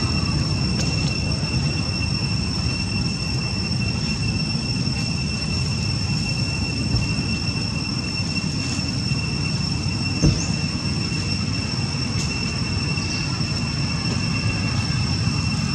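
Steady low rumbling background noise with a constant high-pitched whine over it, and one short knock about ten seconds in.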